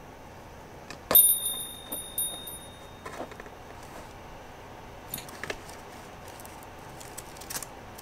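A small metal bell rings about a second in, a bright tinkling ring with a few quick re-strikes that fades over a second or two. A few soft taps follow later.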